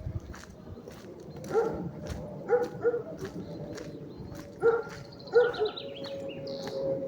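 A dog barking, about five short barks spread over several seconds.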